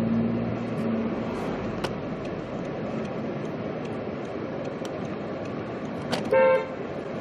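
Steady street traffic noise, with a short car horn toot about six seconds in.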